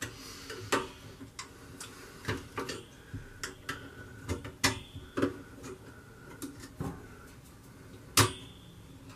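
Irregular small clicks and taps of a screwdriver and fingers working at a freezer's wire shelf and its trim piece, with one sharper click near the end.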